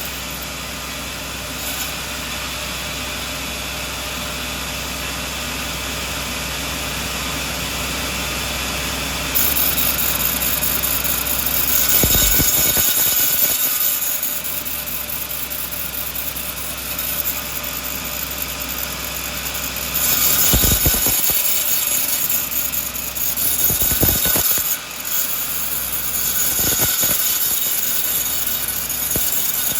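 Sawmill running steadily, with two longer stretches of louder, hissing sawing through the coconut log and a few heavy knocks.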